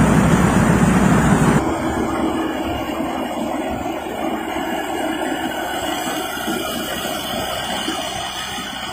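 Combine harvester engine and machinery running loudly. About a second and a half in, the sound cuts abruptly to a much quieter, steady hum.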